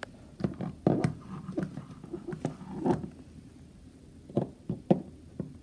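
Plastic toy horse figurines tapped and walked along a wooden floor: a dozen or so light, irregular knocks and clicks.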